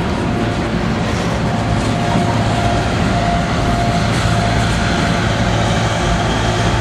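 Freight train's string of boxcars rolling past at close range: a steady rumble of steel wheels on rail, with a faint steady ringing tone over it.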